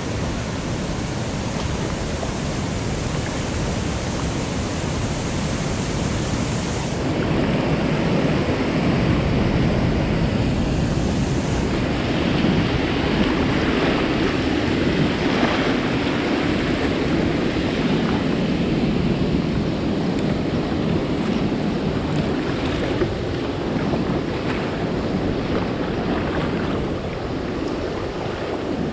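Rushing water from a low dam spillway and the churning river current around a kayak, with wind on the microphone. It gets louder about seven seconds in.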